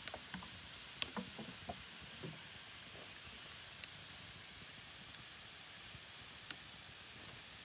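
Wood fire burning around green bamboo tubes of sticky rice: a steady hiss with a few sharp crackles and pops, and some soft knocks in the first couple of seconds.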